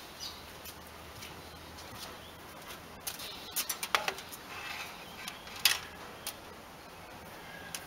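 A few scattered light clicks and taps, a cluster of them about three and a half to four seconds in and a sharp one near six seconds, over a faint low hum.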